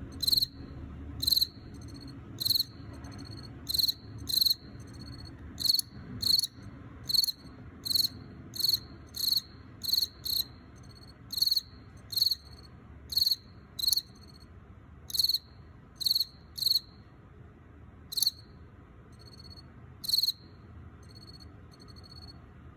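Male Teleogryllus field cricket chirping in an earthenware jar: a loud, high, shrill chirp every half second to second, with fainter short chirps between them. The loud chirps stop about twenty seconds in, and the faint ones carry on.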